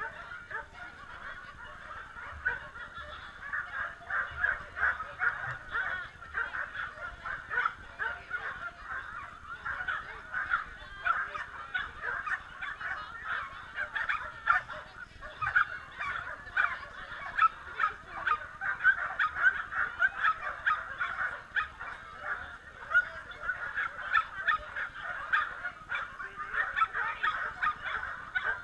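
Many dogs barking at once in a dense, unbroken chorus of short overlapping barks, typical of excited flyball dogs.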